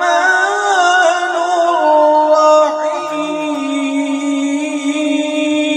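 A man reciting the Quran in the melodic tajweed style into a microphone. His voice winds through ornamented turns, then settles about two and a half seconds in on one long held note.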